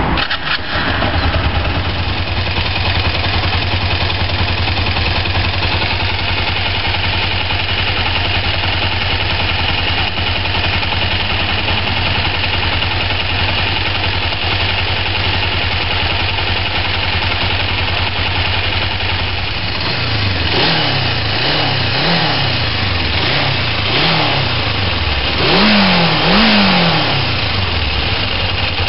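1994 Kawasaki GPZ500S (EX500) 498 cc parallel-twin engine, warm, catching from a start and settling into a steady idle. About twenty seconds in it is revved in several short throttle blips, rising and falling, the highest near the end.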